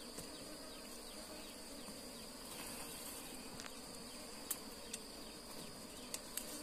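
Faint buzzing of wild honeybees around their opened ground nest, over a steady high insect trill, with a few light clicks about four and a half seconds in and near the end.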